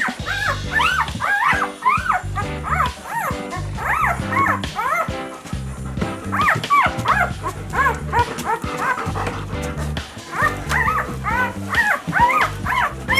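Four-day-old German Shepherd puppies squealing and whimpering in many short rising-and-falling cries, over background music.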